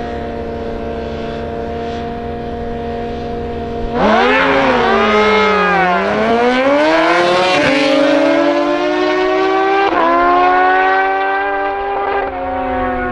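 Two sport motorcycles held at steady revs on a drag-strip start line, then launching hard about four seconds in. Their engines rev up through the gears, the pitch dropping back at each of several gear changes, and fade as the bikes pull away down the strip.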